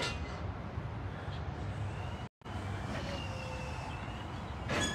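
Steady low rumble of an idling vehicle engine, with a brief dropout about two seconds in.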